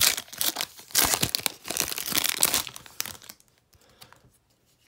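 Foil wrapper of a 2015 Panini Contenders football card pack crinkling as it is torn open. The crinkling stops about three seconds in.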